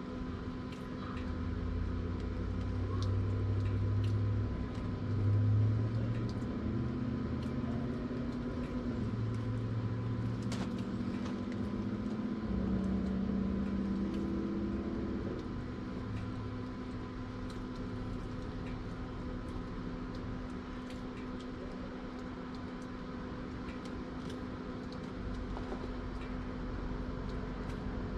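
Low engine rumble of passing motor vehicles, swelling twice in the first half, over a steady background hum, with a few faint clicks.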